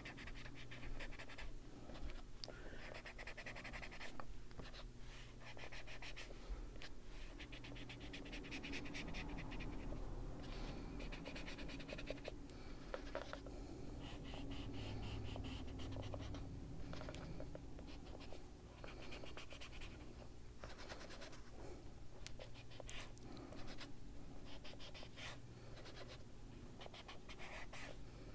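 Foam-tipped Tim Holtz mini detail blending tool rubbing Distress Ink onto a colouring book page. It makes a soft, scratchy scrubbing in runs of quick little strokes with short pauses between them.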